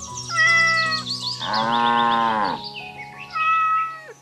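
Light background music with high chirping notes, over which one long drawn-out animal call sounds about one and a half seconds in.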